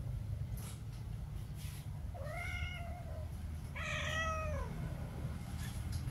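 Cat meowing twice during mating: two drawn-out calls about a second apart, each rising then falling in pitch, the second longer. A steady low rumble sits underneath.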